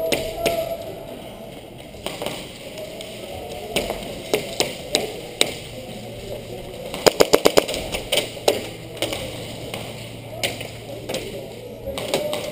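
Airsoft guns firing: scattered single sharp snaps, then a rapid full-auto burst of about eight shots in under a second, about seven seconds in.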